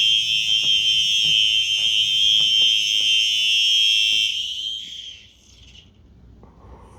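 Two Simplex 4903-9236 fire alarm horns sounding together in a loud, steady, continuous high tone, their slightly different pitches giving an eerie clash. They shut off about four seconds in, and the sound dies away over the next second.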